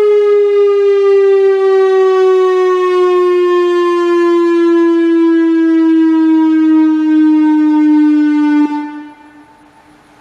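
Whelen WPS-3000 electronic outdoor warning siren sounding a single steady tone that glides slowly down in pitch, then cuts off abruptly near the end, leaving a faint echoing tail.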